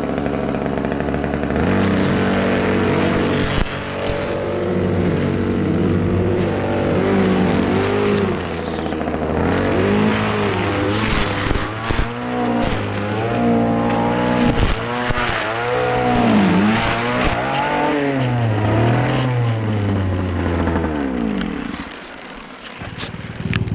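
String trimmer running, its motor speed rising and dipping as the spinning line cuts grass and weeds, with a loud high hiss of the line whipping through the growth. The motor dies down near the end.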